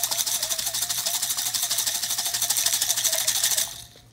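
Small gold-filled watch-band tops rattling inside a jar of hot water as it is shaken fast, about eight shakes a second, to wash off dirt and skin before refining. The shaking stops briefly near the end.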